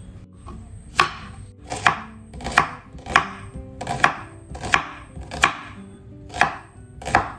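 Kitchen knife slicing a red onion on a wooden cutting board, each cut ending in a sharp knock of the blade on the board. About nine cuts, a little over one a second.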